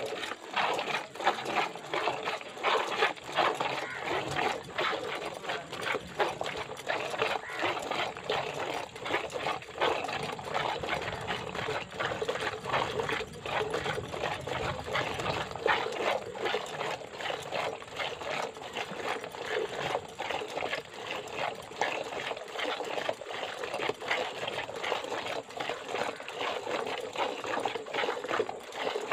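Hand-milking a cow into a steel bucket: milk squirting into the pail in a quick steady rhythm of short strokes, one after another.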